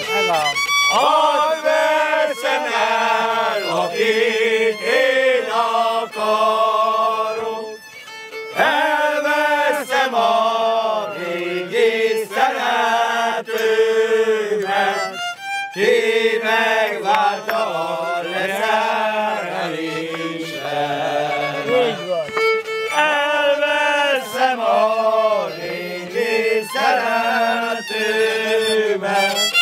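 Violin playing a Hungarian folk-song tune, with men's voices singing along at times.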